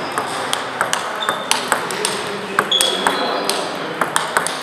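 Table tennis balls clicking irregularly off bats and tables in rallies, with strokes from several tables overlapping. Two short high squeaks come about a second in and again near the middle.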